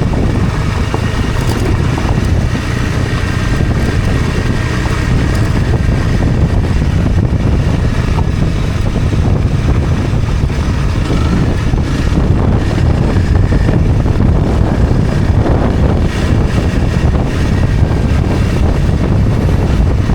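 Honda CRF250 Rally's single-cylinder engine running steadily while riding, with heavy wind buffeting on the microphone.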